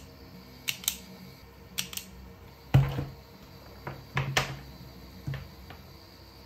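Scattered clicks and knocks of hand tools and wire being handled on a workbench, about ten in all, the loudest about three seconds in and a quick cluster near four seconds.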